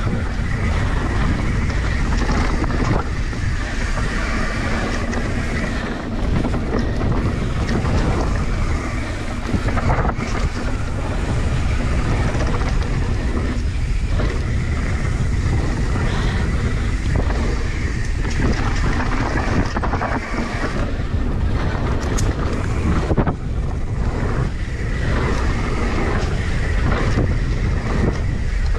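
Wind buffeting the microphone and tyres rumbling over a dirt trail as a mountain bike rolls downhill, with scattered knocks and rattles from the bike over bumps.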